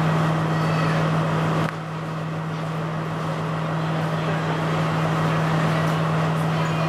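Steady low drone of a diesel train standing at the platform, over a murmur of people on the platform. The drone dips briefly about a second and a half in.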